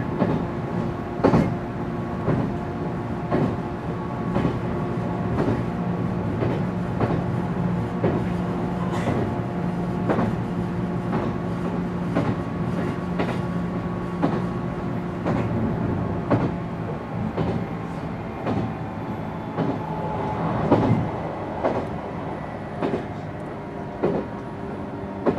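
JR 719 series electric train running, heard inside the motor car: a steady hum of several tones from the thyristor phase-controlled traction drive over the running rumble, with the wheels clicking over rail joints about once a second.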